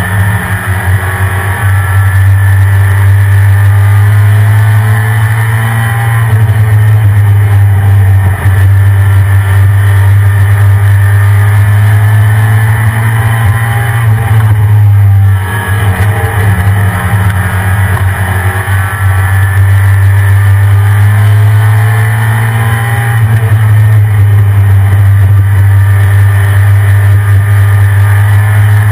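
Stock 1993 Ford F-150 Lightning's 5.8-litre V8 running, a loud steady low drone with a brief dip and shift in pitch about fifteen seconds in.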